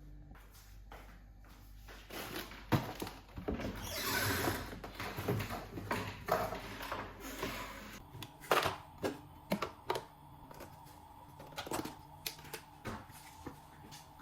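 Household objects being handled: scattered knocks, clicks and clatter, with a brief rushing hiss about four seconds in.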